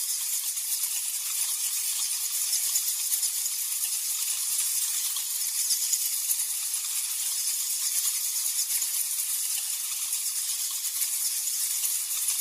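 Many bats chittering together: a dense, continuous mass of high-pitched squeaks and clicks.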